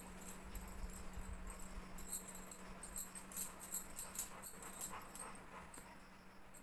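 A pet dog moving about with quick, irregular jingling clicks, over a steady low hum.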